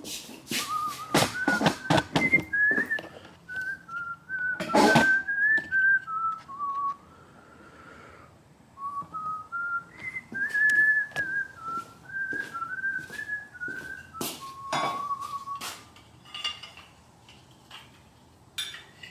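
A person whistling a wandering tune in single clear notes, over scattered knocks and clatters of things being handled. The whistling stops about four-fifths of the way through.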